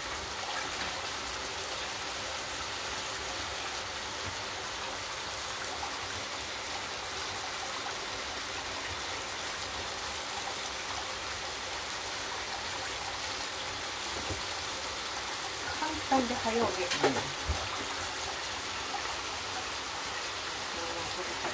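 Food frying in a pan with butter, a steady sizzle, briefly louder and busier about three quarters of the way through.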